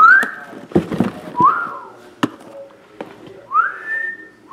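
Whistling: four short notes, each gliding up and then holding, the third one longer. Between the notes come a few sharp knocks and taps as cardboard card boxes are handled and set down.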